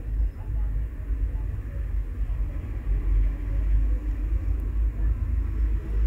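Steady low background rumble with no distinct events.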